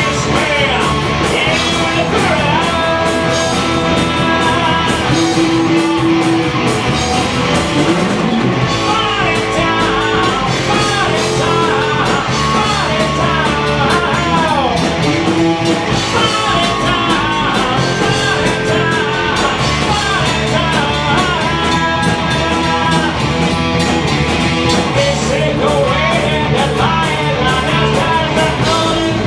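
Heavy metal band playing live: electric guitars, bass and drums with a singer, loud and continuous.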